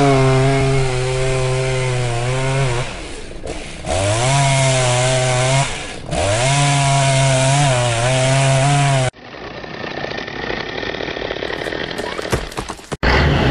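Chainsaw running in three spells, its pitch rising each time it revs up, until it cuts off suddenly about nine seconds in. A quieter steady hiss follows, with a few sharp cracks near the end.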